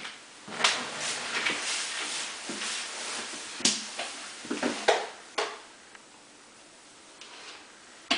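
Hands handling things on a plastic cutting board: rustling, with several sharp taps and knocks over the first five seconds, after which it goes quiet.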